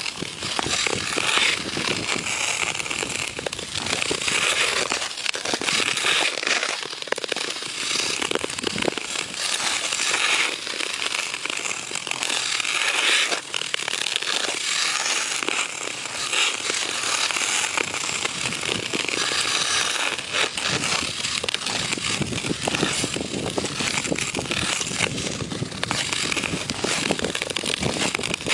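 Hockey skate blades scraping and carving on rink ice, picked up close: a continuous crunchy scrape dense with sharp crackles as the blades push and glide.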